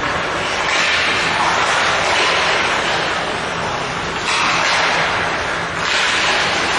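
Ice rink ambience during play: a loud, steady rushing hiss that swells and eases twice, over a faint low hum.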